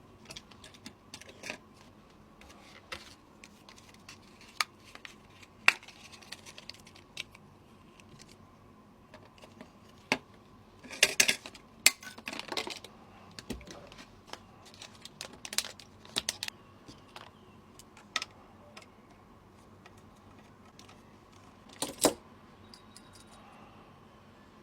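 Irregular clicks and taps of small hard computer parts being handled and fitted during a PC build, with a brief flurry of clattering about eleven seconds in, over a faint steady hum.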